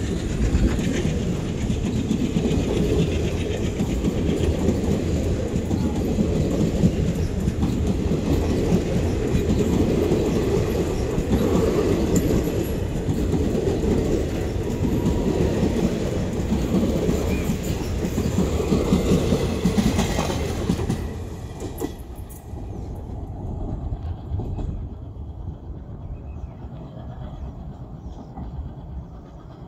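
Express train coaches rolling past, their wheels clattering over the rail joints. About two-thirds of the way through the sound drops off sharply as the train clears, leaving a fainter, fading rumble.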